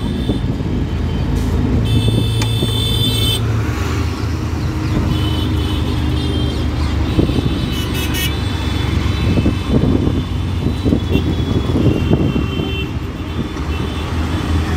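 Road traffic heard from inside an open auto-rickshaw: the rickshaw's small engine runs steadily underneath, and vehicle horns honk several times, the longest about two seconds in.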